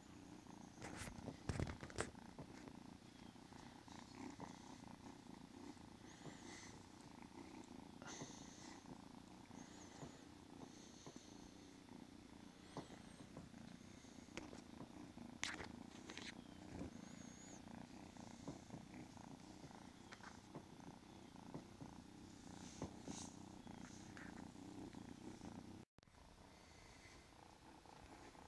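Kitten purring steadily and faintly, with a few sharp clicks scattered through.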